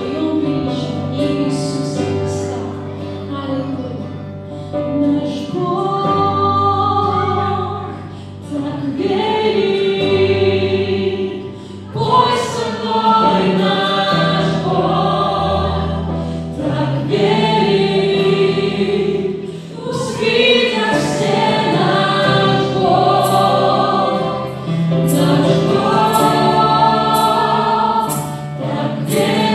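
Church worship band performing a praise song: a group of men's and women's voices singing together in phrases, accompanied by keyboard, acoustic guitar and bass guitar.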